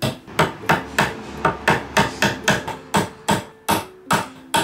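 Mallet tapping a soft floor pad onto the end of a wooden chair leg, in a steady run of quick strikes, about four a second.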